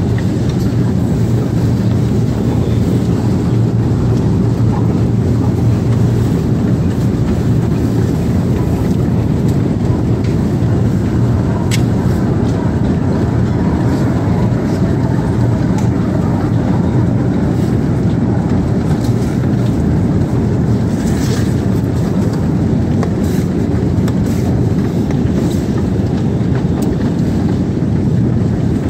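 Escalator running with a steady low mechanical hum, with an occasional faint click.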